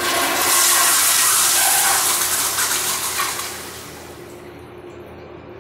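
2000s Crane Whirlton toilet flushing: a loud rush of water starts suddenly, then drops to a quieter run of water about four seconds in.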